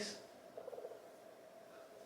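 Near silence: quiet room tone with a faint steady hum, after the tail of a spoken word at the very start.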